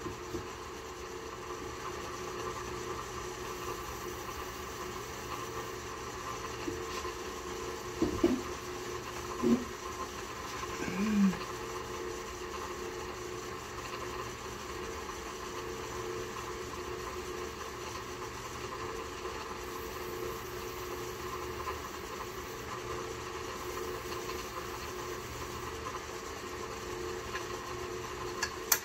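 Delta (Rockwell) drill press running steadily, spinning an intake valve in its chuck. A few light knocks and a short squeak come about a third of the way in, and there is a click near the end.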